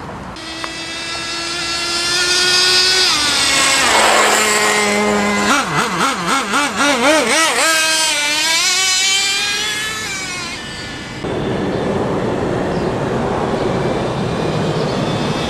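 Nitro two-stroke glow engine of a Traxxas Jato RC truck running at high revs. Its high pitch climbs, drops about three seconds in, wavers rapidly up and down around the middle, then falls away. In the last few seconds it is fainter under a steadier rushing noise.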